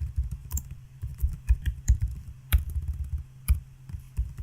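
Computer keyboard typing: irregular keystrokes, a few a second, over a steady low hum.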